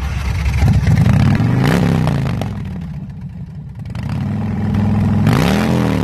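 Custom chopper motorcycle's engine revved twice: it climbs from about half a second in and falls back after two seconds, then climbs again near four seconds and drops back near the end.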